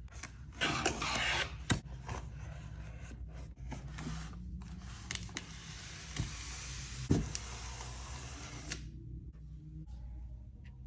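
Cardboard packaging of a wireless charging desk mat being handled and opened: rustling and rubbing with a few sharp knocks, and a long sliding scrape from about four to nine seconds in.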